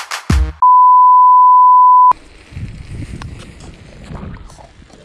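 The last beats of electronic music, then a loud, steady beep at a single pitch lasting about a second and a half. It cuts off sharply into the rolling and rattling noise of riding a bicycle along a paved path.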